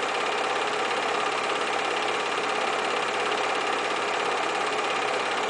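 A small machine running steadily with a fast, even clatter.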